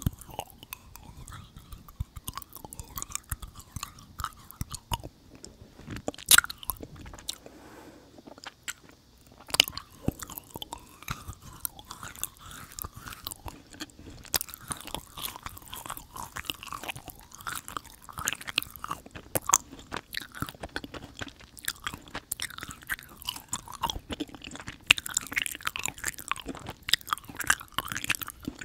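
Close-miked chewing of Hadir dried jujube sweets, a sticky, chewy texture, with many sharp wet clicks of the mouth. The loudest click comes about six seconds in.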